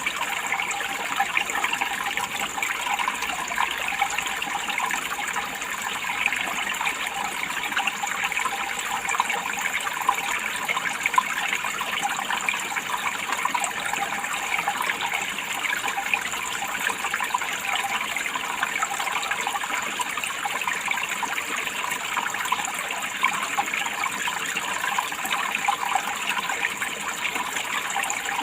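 Water running steadily in a continuous trickling, splashing flow.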